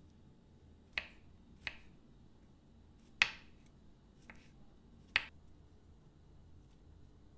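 Five sharp, short clicks at uneven intervals; the third, a little past the middle, is the loudest.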